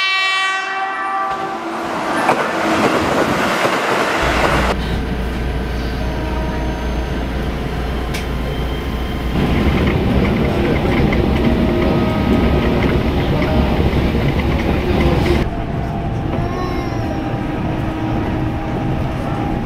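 The tail of a Keihan 13000-series train's horn, then the train passing close by with rail noise. After that, the running noise heard inside a moving Keihan 10000-series car: a steady low hum with faint motor tones, louder for several seconds in the middle.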